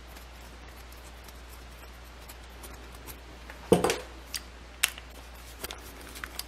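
Hand-handling of a small metal gas valve and a screwdriver: one sharp knock a little past halfway, then a few light metallic clicks as the screwdriver is set into the valve's screw.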